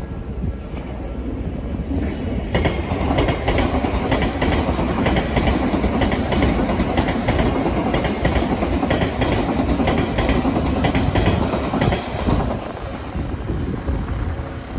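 Train running past at a railway crossing, its wheels clacking over the rail joints. It grows louder about two and a half seconds in and eases off near the end.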